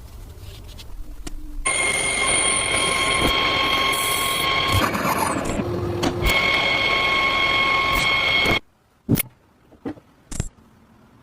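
An electric power tool, its motor running with a steady high whine over a grinding noise. It starts about one and a half seconds in and cuts off abruptly a little before the end, followed by a few short clicks.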